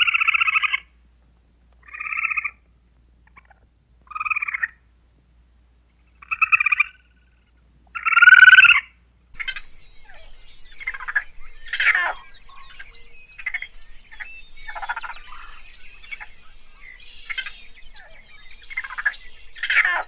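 Squirrel calling: five buzzy, pulsing calls about two seconds apart, the last the loudest. Then, from about nine and a half seconds in, raccoons chittering and squealing in quick, varied bursts.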